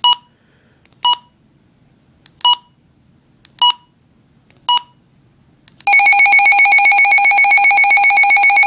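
Midland HH54VP2 weather radio beeping once with each menu button press, five short identical beeps about a second apart. About six seconds in, its alert-test alarm starts: a loud, steady, rapidly pulsing tone.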